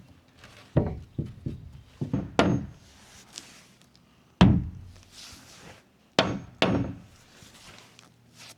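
Hammer knocks on wood as a plywood sheet is set against the wall framing: about nine irregular blows, the loudest about four and a half seconds in and two more close together near the end.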